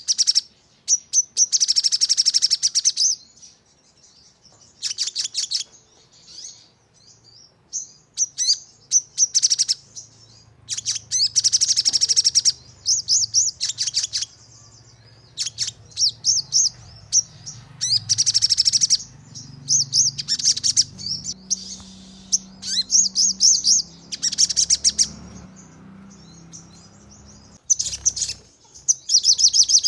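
A sogon songbird singing in the rapid 'nembak' style: repeated bursts of fast, sharp, high chirps, each burst lasting up to about two seconds, with short pauses between them.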